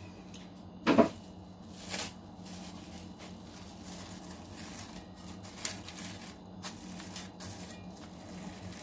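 Plastic cling wrap crinkling and rustling as it is pulled and pressed around a cake pan, with a loud sharp sound about a second in and a smaller one a second later. A steady low hum runs underneath.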